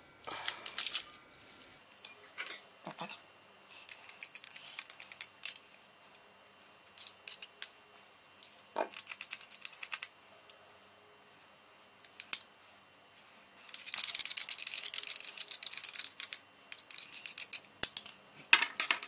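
Hand-held metal garlic press crushing garlic cloves, with scattered small metallic clicks and creaks, then a knife scraping the crushed garlic off the press in quick strokes. The scraping is loudest in a dense two-second run about three-quarters of the way through.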